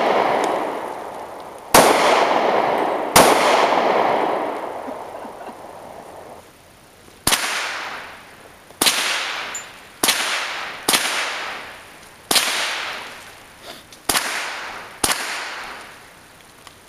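Nine gunshots fired at an irregular pace, one every one to two seconds, each crack followed by an echo rolling away. The first few shots ring out longer than the later ones.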